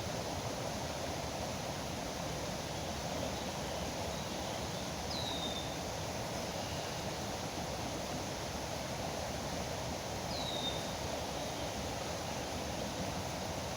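Steady rush of river water. A bird gives a short, high, downward-sliding whistle twice, about five seconds apart.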